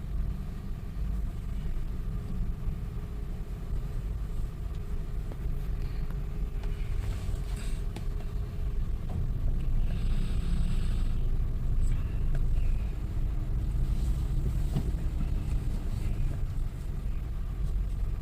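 Car driving, heard from inside the cabin: a steady low rumble of engine and road, with a brief swell of hiss about ten seconds in and a few light clicks.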